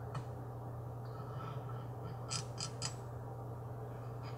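Variable autotransformer (Variac) humming steadily under a lamp load, with a few light clicks from its knob being turned, three of them close together about halfway through.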